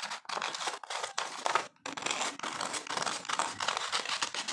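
Scissors cutting through a paper sewing pattern along a curved neckline, the paper crinkling and rustling as it is turned, with a short break a little under two seconds in.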